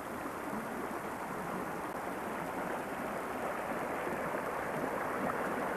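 Steady rushing of a flowing stream, growing slightly louder.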